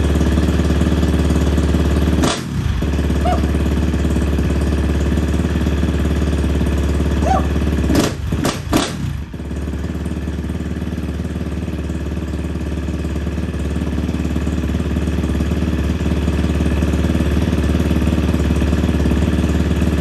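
KTM 350 single-cylinder four-stroke dirt bike engine, big-bored to 365 cc and running on a Vortex aftermarket ECU, idling steadily. It is broken by a quick throttle blip about two seconds in and a short run of blips around eight to nine seconds.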